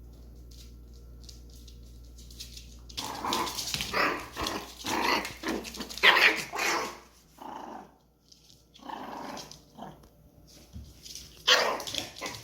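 Dog barking and growling in a rapid string of short barks starting about three seconds in, a few more around the middle and a loud burst near the end. A low steady hum underlies the first few seconds.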